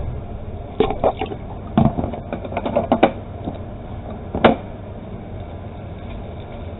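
A series of short clicks and light knocks from about a second in to about three seconds in, then one sharper knock about four and a half seconds in: bottles and a jug being handled and set down, over a steady low hum.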